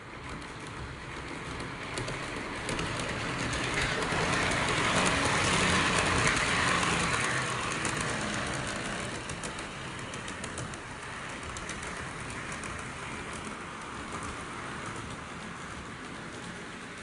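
H0-scale model AVE 103 high-speed train running over sectional model track: a steady rumble with rapid clicking of the wheels over the rail joints, swelling as it passes close about six seconds in and then easing as it runs on round the far side of the loop.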